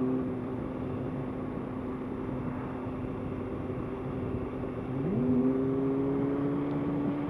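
Honda CBR600F4i inline-four engine on the move, running low and steady for a few seconds. About five seconds in, the revs climb quickly and hold as the bike accelerates, with wind and road noise rushing on the mic.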